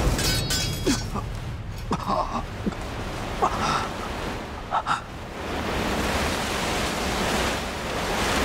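A wounded man gasping and groaning in pain in several short breaths during the first half, over a steady hiss that swells in the second half.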